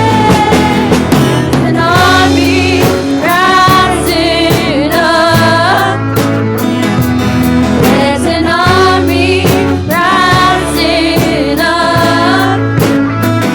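Live band playing a worship song, with a sung melody over bass and a steady beat.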